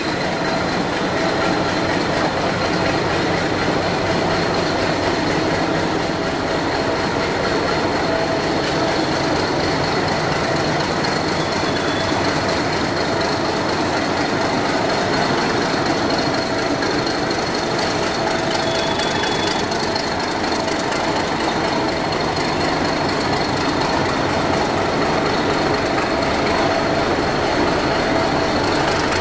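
Diesel engine of an Alco WDS-6AD shunting locomotive running steadily at close range, with a constant high whine over the engine sound.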